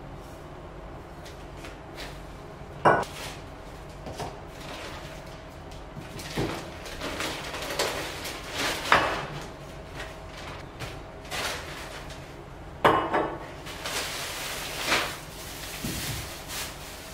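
Groceries being unpacked onto a kitchen counter: a plastic carrier bag rustling, with items and bottles set down in knocks and clinks and a cupboard door being handled. Two sharp knocks, about three seconds in and again about ten seconds later, are the loudest.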